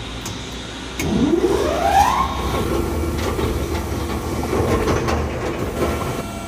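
SUPU SPC600 single-shaft shredder starting up: about a second in, its motor comes on with a whine that rises in pitch for about a second, then settles into a steady running hum.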